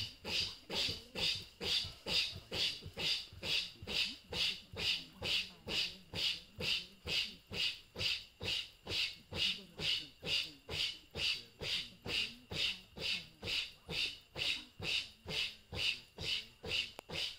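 Dancers blowing short, hissing breaths in unison, about two a second, the rhythmic breath sound of the Goan fugdi dance.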